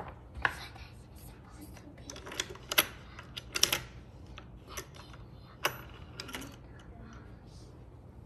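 Wooden pieces of a children's activity wall clicking and knocking irregularly as a child moves the corded pegs and slides a wooden marker along a grooved track. The sharpest knocks come about half a second in, near three seconds and near five and a half seconds in, over a low steady hum.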